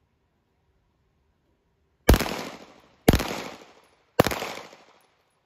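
Three pistol shots fired about a second apart at a moving target, each ringing out in a short echo that dies away before the next.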